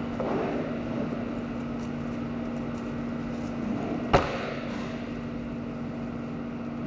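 A boning knife cutting and scraping along beef rib bones on a cutting board over a steady machine hum, with one sharp knock about four seconds in.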